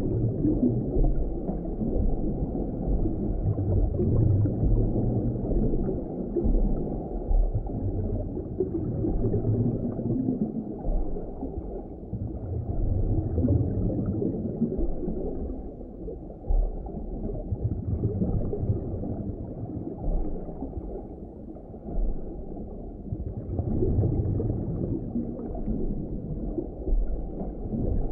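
Low, muffled underwater ambience: a deep rumble with gurgling water, swelling and easing every few seconds.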